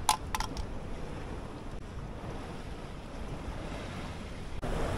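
Wind buffeting the microphone over a steady outdoor hush, with two or three sharp clicks right at the start. Near the end the sound changes suddenly to louder wind and sea noise.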